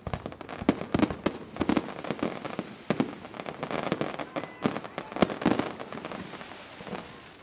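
New Year fireworks display bursting: a rapid, irregular run of sharp bangs and booms, several a second, over a steady haze of crackling, with people's voices faintly mixed in.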